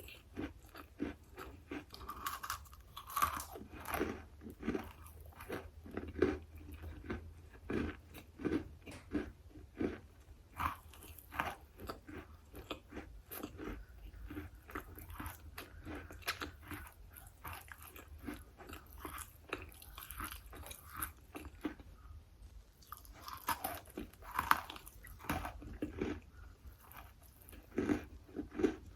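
Close-up chewing with repeated crisp crunches and bites of a hard, chalky material (drywall or chalk being eaten), a couple of crunches a second in an irregular rhythm.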